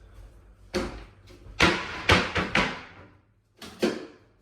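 A series of knocks and clunks of kitchen things being handled and set down: one, then a quick cluster of four or five, then two more close together near the end.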